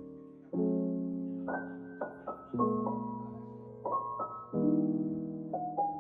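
Soft solo piano background music: chords struck about once a second and left to fade.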